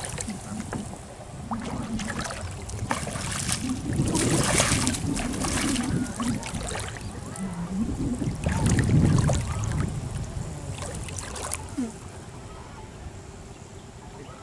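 Shallow water sloshing and splashing in irregular bursts as a person wades and hauls in a cast net, growing quieter near the end.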